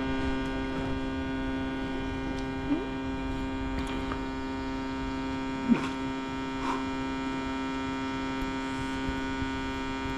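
A steady, even hum with many overtones, broken by three short chirps, the loudest near the middle.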